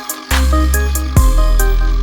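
Electronic background music with short repeated synth notes over heavy bass hits and a steady beat.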